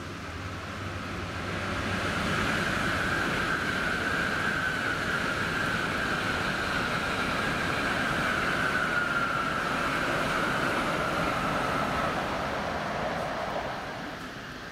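A 700 Series Shinkansen and a green-and-orange striped electric commuter train going by together: a steady rail rumble with a high whine that slowly drops in pitch. It builds over the first couple of seconds and fades near the end.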